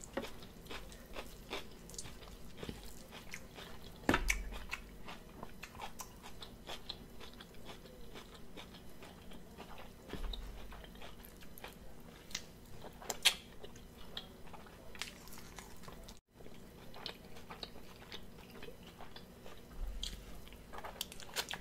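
Close-miked chewing and mouth sounds of someone eating meat off cooked neck bones by hand, with many small clicks and a few soft thumps.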